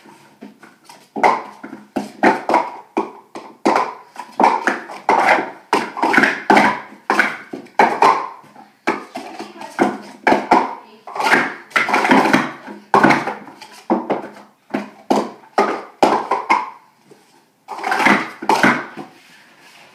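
Plastic sport stacking cups being rapidly stacked up and down on a stacking mat in the cycle sequence: quick runs of clattering clicks and taps, with a short pause near the end.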